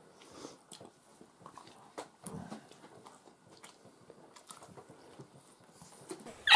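A person chewing and biting food, faintly, with small scattered mouth clicks and a brief low murmur about two seconds in.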